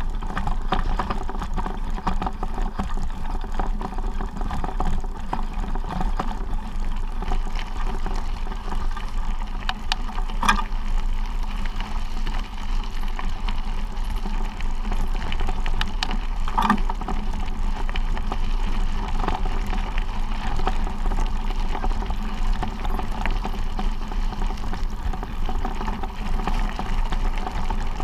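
Steady noise of travel over a stony gravel track, with two sharp knocks, one about ten seconds in and one about sixteen seconds in.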